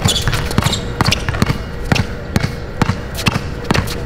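A basketball being dribbled hard on an outdoor concrete court: a quick, uneven run of bounces, a few each second, as the ball handler works against a defender.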